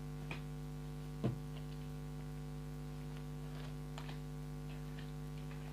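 Steady electrical mains hum on the recording, a recording fault, with a few faint, short clicks and taps, the clearest about a second in.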